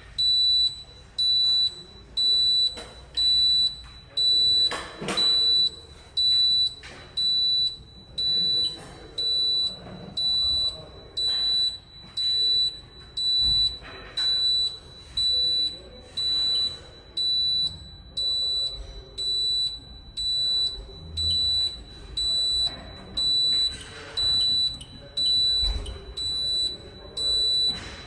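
Fire alarm panel's internal buzzer, an Advanced MxPro 5, giving a high-pitched pulsed beep at a bit more than one beep a second. It signals that the panel is in fault, here a high-resistance loop load current fault.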